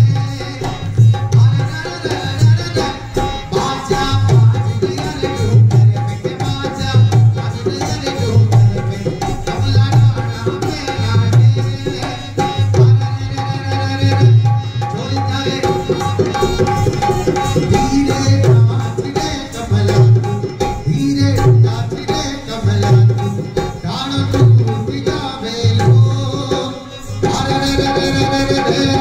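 Rajasthani Kalbeliya folk dance music: a steady, repeating hand-drum beat under a held drone and a melody line.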